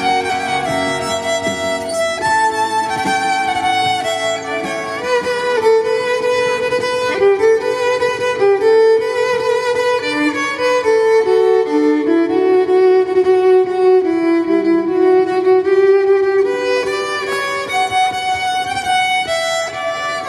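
Violin melody played by a street musician and amplified through a loudspeaker, mostly long held notes that step and slide from one pitch to the next without a break.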